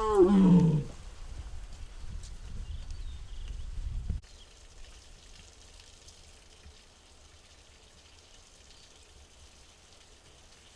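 A tiger gives one short, loud call, under a second long, that falls in pitch. A low rumbling noise follows and stops abruptly about four seconds in.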